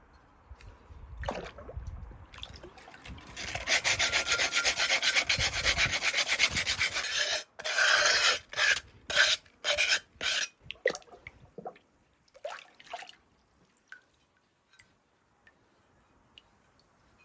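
Sandpaper rubbing over bisque-fired clay pottery: a stretch of fast back-and-forth scratchy strokes, then several slower separate strokes, fading out near the end.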